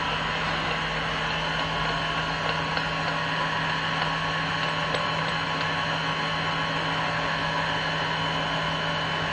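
Steady machine hum over a constant rushing noise, with a low tone that holds unchanged throughout.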